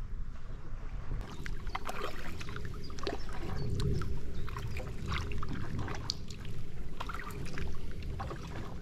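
Kayak paddle strokes in canal water: the blades splashing and dripping in loose, irregular bursts over a low rumble.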